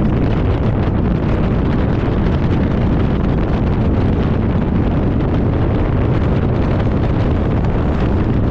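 Vehicle driving on a rough dirt road: a steady, heavy rumble of engine and tyres, with wind buffeting the microphone.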